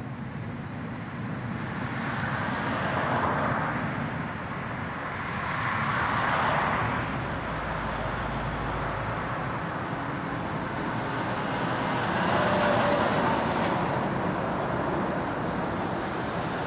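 Road traffic with heavy trucks passing: engine and tyre noise swells and fades as each vehicle goes by, with a deep rumble in the middle. A short high hiss comes near the end.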